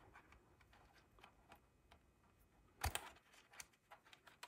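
Faint clicks and taps of small hard plastic parts being handled: a light bar mounting bracket worked against the plastic exo cage of a 1/18-scale RC truck, with one louder click about three seconds in.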